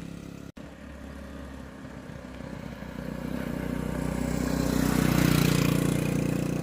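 1979 Honda CT90's small single-cylinder four-stroke engine running as the bike is ridden closer, growing louder, loudest about five seconds in, then easing off slightly. It is running smoothly on its freshly tuned aftermarket Chinese carburetor.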